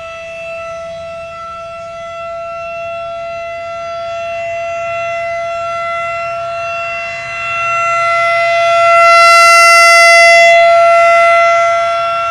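Federal Signal 2001-SRN electromechanical rotating warning siren sounding its loud, steady single tone during a test. It grows louder about two-thirds of the way through, then eases off near the end.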